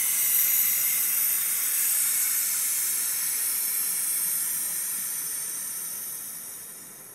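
Compressed air hissing out of the truck's front airbag through a hand-pressed fill valve as the air suspension is let down. The hiss is loud and steady at first, then slowly fades over the last couple of seconds as the bag empties.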